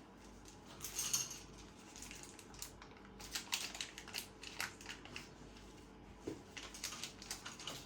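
Faint crinkling and ticking of a small packet of baking powder being shaken and tipped out into a bowl of flour, in irregular short crackles, busiest from about three to five seconds in and again near the end.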